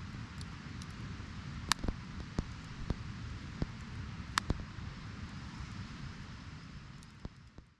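Outdoor ambience: a steady low rumble and hiss, broken by several sharp clicks in the middle seconds, fading out near the end.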